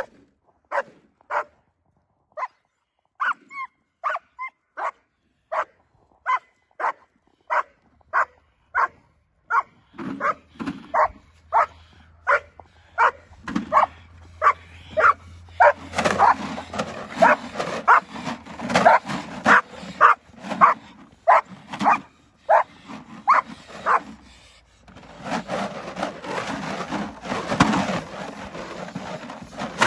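A protection-trained dog barking repeatedly at a helper in a bite suit, about one to two barks a second, coming faster as the helper closes in. Near the end the separate barks give way to a continuous rough noise of the dog gripping and tugging at the padded suit.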